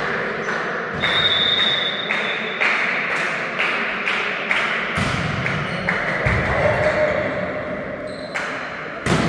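Steady rhythmic thumps, about two beats a second, echoing in a large sports hall, with a louder, sharper impact near the end.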